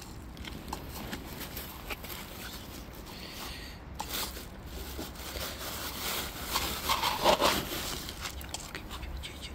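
Cats eating dry kibble from the pavement: scattered small crunches, clicks and scrapes. A louder sound rises about seven seconds in and fades within a second.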